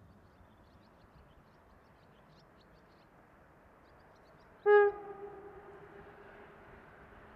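Horn of an approaching red DB regional diesel multiple unit: one short, loud single-tone blast about two-thirds of the way in, trailing off over about a second, sounded as a warning to an animal on the track ahead.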